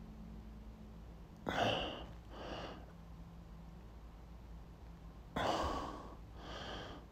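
A person's heavy breaths: two pairs, each a loud breath followed by a softer one, about a second and a half in and again about five and a half seconds in.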